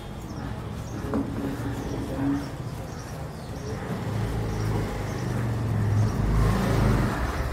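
Low rumble of a motor vehicle's engine in street traffic, growing louder from about halfway through.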